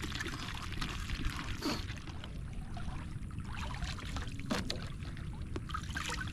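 Water pouring and splashing off a hoop crab lift net as it is raised out of a river, and sloshing around a wading person, with a couple of light knocks.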